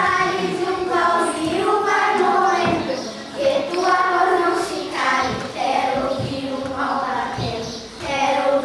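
Children singing a song, in several phrases with short breaks between them.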